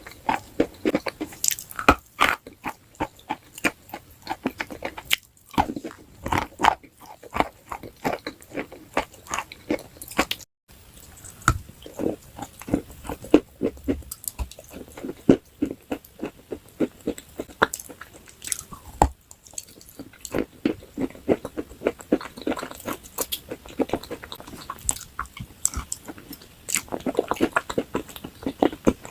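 Close-miked biting and chewing of a crunchy food: dense, irregular sharp crunches, several a second, with a brief dropout about ten seconds in.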